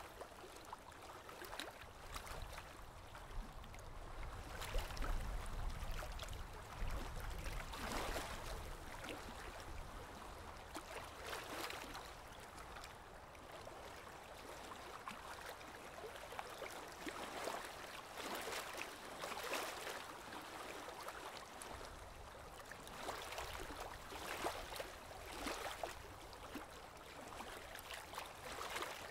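Aquarium water gurgling and trickling steadily, with repeated small splashy surges and a low rumble from about four to eight seconds in.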